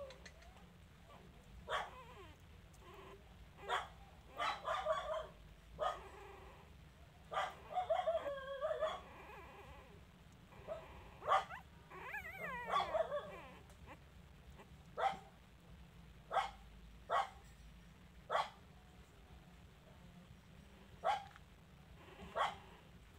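Young puppies whimpering and yelping in short, scattered cries, with a couple of longer wavering whines in the middle.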